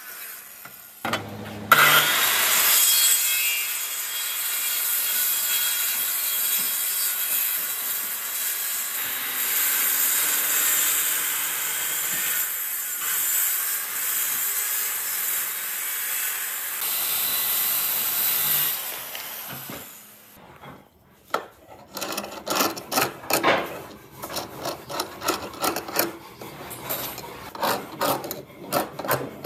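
Makita circular saw starting up about two seconds in and cutting steadily through a thick board, its blade hissing until it stops at about nineteen seconds. After a short pause comes a run of quick, irregular scraping strokes of a hand tool on the wood's edge.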